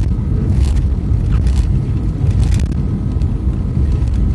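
Steady low road and engine rumble heard from inside a moving vehicle's cab on a snowy road, with a few brief clicks over it.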